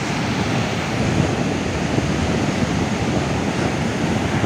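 Ocean surf breaking and washing up the beach, with wind buffeting the microphone, a steady rushing noise throughout.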